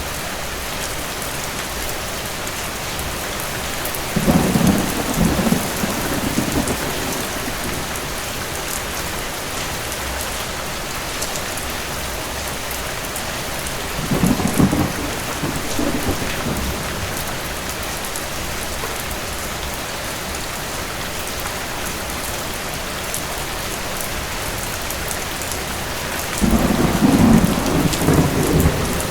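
Steady rain with three low rolls of distant thunder: one about four seconds in, one midway, and a longer one near the end.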